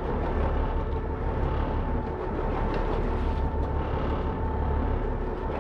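Wind buffeting the microphone in an uneven low rumble over the steady hum of a boat's engine.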